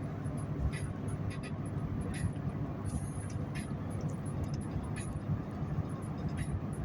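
Steady low rumbling noise with faint, scattered clicks.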